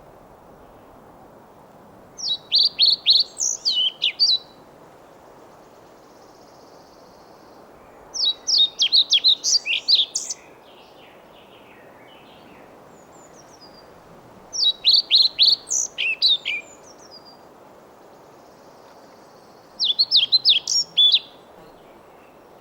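Male European pied flycatcher singing: four short phrases of quick, high, sweet notes, each about two seconds long and spaced roughly six seconds apart.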